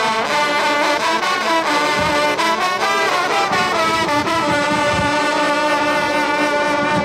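An ensemble of French hunting horns (trompes de chasse) playing a fanfare together, moving through several notes and then holding a long final note from about four and a half seconds in.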